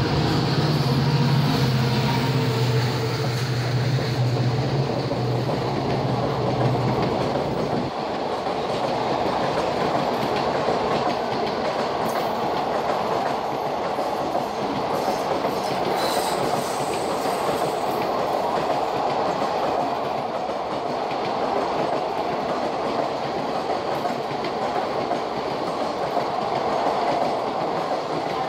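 An EMD WDG-4 diesel locomotive passes at speed, its engine hum strong for the first several seconds. Then a long rake of passenger coaches goes by with steady clickety-clack of wheels over rail joints.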